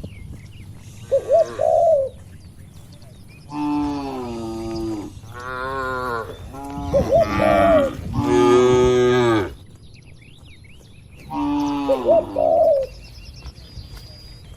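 Several cattle mooing in turn: long, drawn-out calls following one another from about three and a half to nine and a half seconds in, and another near the end.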